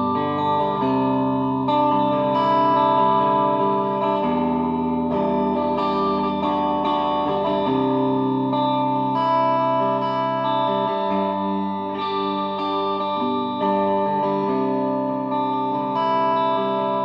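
Electric guitar played through a Fender Blues Junior tube amp. Held chords ring out and change every second or two.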